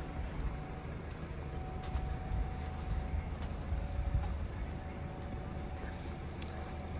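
Kia Optima 1.7 CRDi diesel idling with a steady low rumble, with scattered light footsteps on gravel.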